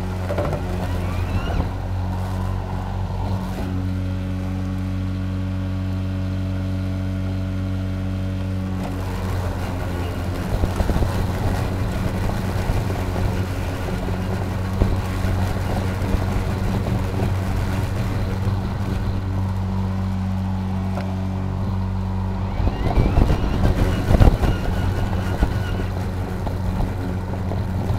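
EGO Power+ LM2135SP 56 V battery self-propelled lawn mower running under load while cutting grass, a steady motor and blade hum. Louder crackling stretches come about ten seconds in and again near the end.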